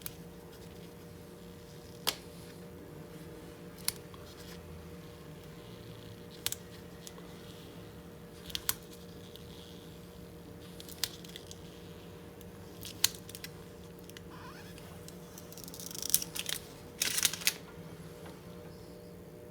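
Thin polarizing film being picked at and peeled off a laptop LCD panel: scattered sharp little clicks every couple of seconds, then a short spell of crackling and tearing about three-quarters of the way through. A faint steady hum runs underneath.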